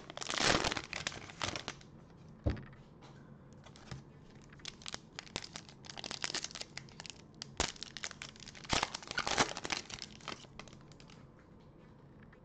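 Foil wrapper of a trading card pack being torn open and crinkled by hand, loudest in the first two seconds. Scattered crackles and clicks follow as the wrapper is worked and the cards are drawn out, dying away near the end.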